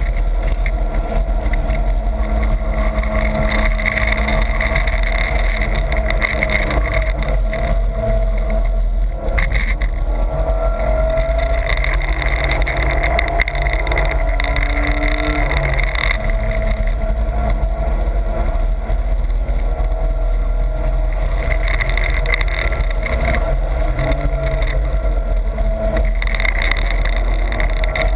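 BMW's engine heard from inside the cabin while lapping a race track, running hard under load, with a heavy low rumble and wind and tyre noise. The engine note rises and falls with the throttle, dipping briefly about nine seconds in.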